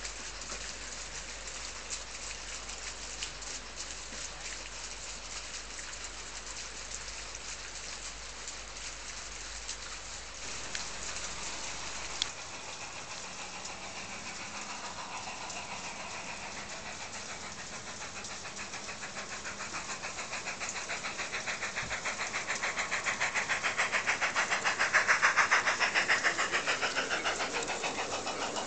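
Garden-railway model goods train running along the track, its wheels clicking rapidly over the rail joints. It grows louder as the wagons pass close by near the end, then eases off.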